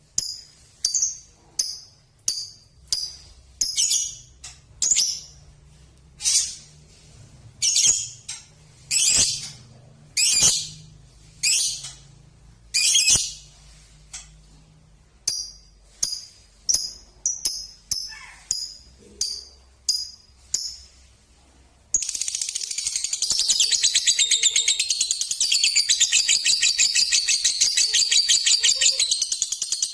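Six-month-old balibu lovebird calling in sharp, high chirps about once a second, then about two-thirds of the way in breaking into a continuous rapid chatter.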